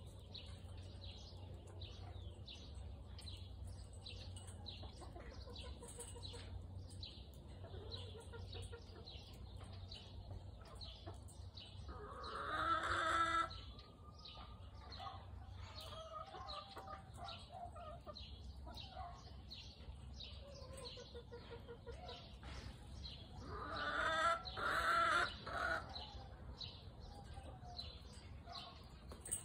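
Backyard chickens clucking in their run, with a rooster crowing loudly twice, once near the middle and again later on.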